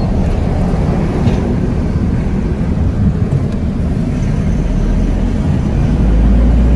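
Car driving along a town road, heard from inside the cabin: a steady low rumble of engine and tyres that grows louder about five seconds in.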